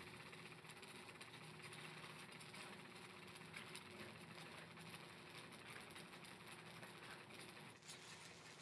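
Near silence: faint steady low hum of room tone, with an abrupt change near the end where the recording is cut.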